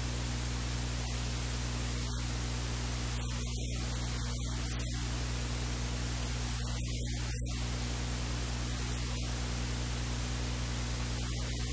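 Steady electrical hiss with a low mains hum.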